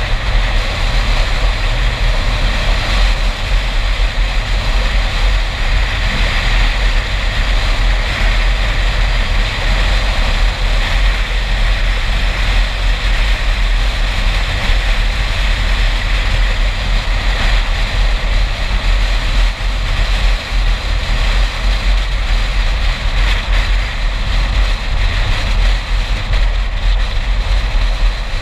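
Steady road and wind noise from a car driving at speed, with a deep low rumble underneath and no distinct events.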